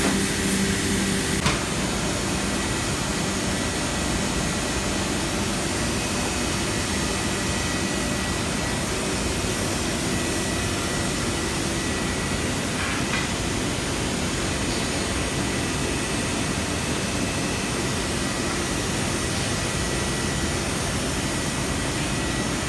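Steady industrial machine noise, an even rushing whoosh from the CNC router's vacuum pump and electric motor unit running. A low hum under it stops about a second and a half in.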